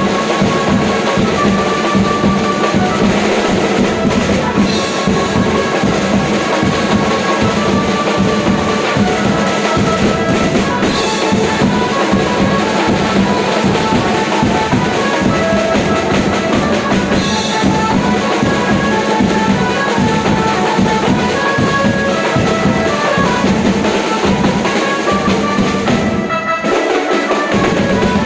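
A live street band playing a fast dance beat on a drum kit and hand-held drums, with a melody line over it. The music drops out briefly near the end.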